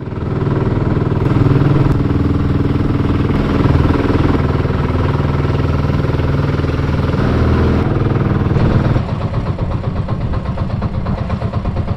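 Engine of a motorized outrigger boat running steadily while under way, with the rush of wind and water. About nine seconds in, the engine note turns choppier and more rapidly pulsing.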